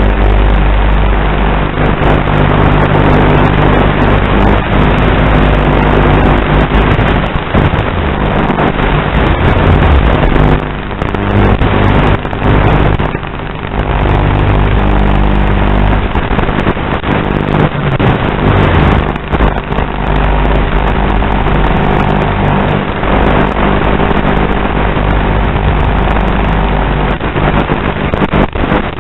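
Loud, steady electrical buzz and hiss from the analog FPV video link's audio channel as recorded by the goggles' DVR, its hum pitch fixed throughout, with a few brief dips in level near the middle.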